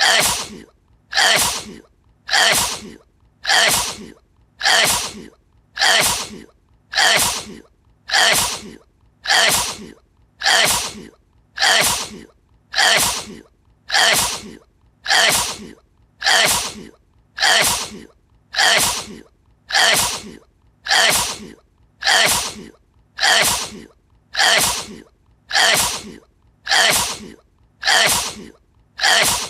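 A person's sneeze looped over and over: the same sneeze repeats at an even pace, about one every second and a quarter, each starting suddenly and fading within about half a second.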